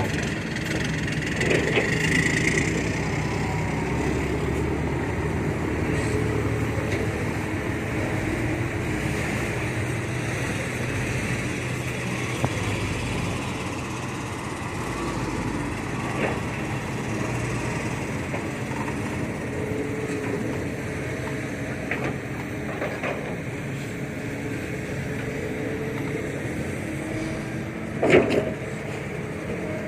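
Heavy diesel engine running steadily, with a few short knocks and a louder clank near the end.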